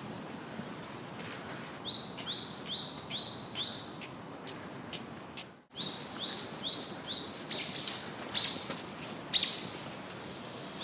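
High chirping animal calls: two quick runs of four or five short falling notes, then two louder single calls near the end, over a steady background hiss.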